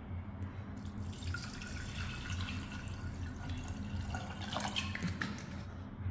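Water pouring into a container, starting about a second in and stopping near the end, over a low steady hum.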